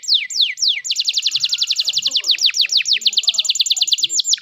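Canary singing: a few spaced, high, falling whistled notes, then a long, fast, even trill of the same falling notes that breaks off near the end.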